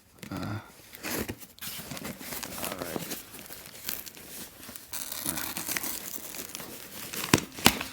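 Shipping packaging being pulled apart by hand: plastic and paper crinkling and tearing, with two sharp snaps near the end.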